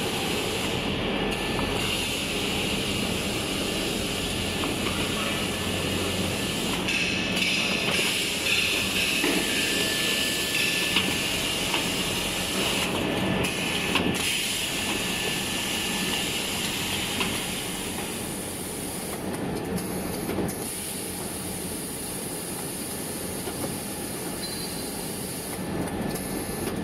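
Steady running din of tissue-paper converting machinery, including an industrial band saw roll-cutting machine and its conveyors, with a low hum and a constant hiss. The hiss grows stronger for several seconds in the middle, then eases.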